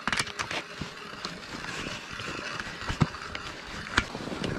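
Rustling handling noise of clothing and a cloth-covered cordless drill held at the microphone, with a few sharp knocks and clicks, one about three seconds in and another about four seconds in.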